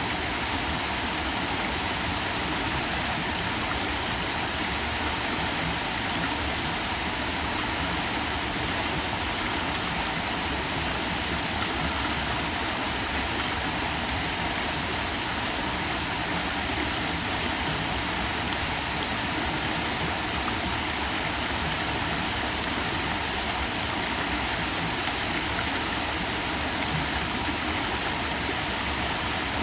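Small woodland waterfall spilling over a rock ledge into a shallow pool: a steady, unchanging rush of falling and running water.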